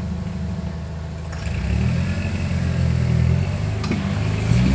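Off-road Jeep's engine running low and steady, then revving up and down from about a second and a half in as it climbs over rocks under load. A short knock sounds about four seconds in.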